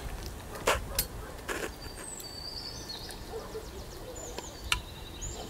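A few sharp clinks and knocks of a ladle against a cooking pot as soup is stirred, over small birds chirping with short high whistles.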